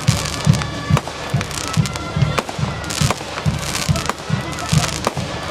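Fireworks going off: a rapid, uneven series of bangs and crackles from bursting shells, with deep thumps several times a second.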